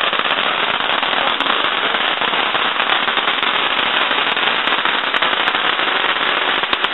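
A string of firecrackers going off in a rapid, unbroken crackle of pops, steady throughout.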